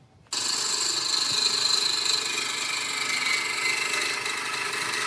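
A turning tool cutting into a log spinning on a wood lathe, peeling off a stream of shavings with a loud, steady scraping rush. It starts abruptly about a third of a second in.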